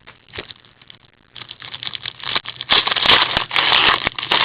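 Hockey card pack being torn open and the cards handled: crinkling wrapper and rustling cards, starting about a second and a half in and loudest near the end, with sharp clicks.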